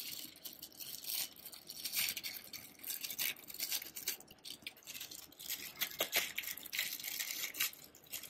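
Clear plastic bag crinkling and rustling as it is handled and opened: an irregular stream of crackles with sharper snaps now and then.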